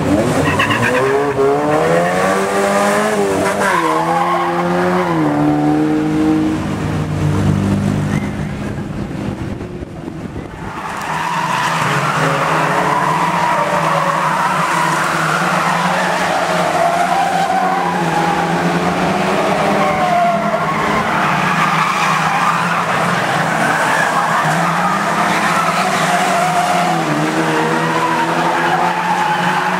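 Engines of a pack of banger stock cars revving hard as they race round an oval track, rising in pitch over the first few seconds. The sound dips briefly about ten seconds in, then returns with several engines overlapping and a wavering tyre squeal as cars slide through the bend.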